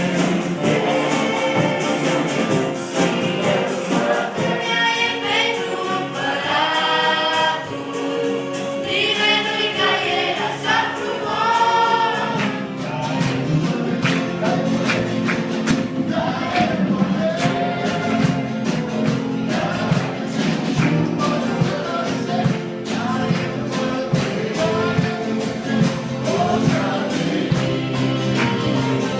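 Group of voices singing a Christian worship song with instrumental accompaniment and a steady beat; the sung lines stand out most clearly for several seconds early on.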